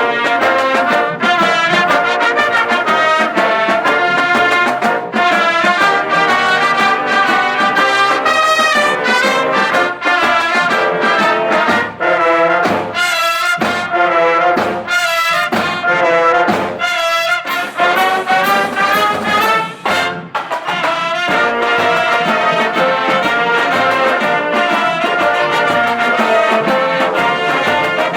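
High school marching band playing brass music, trumpets and trombones over sharp percussion hits. Partway through, the band plays a run of short, punched chords with gaps between them, then a brief break before the full sound resumes.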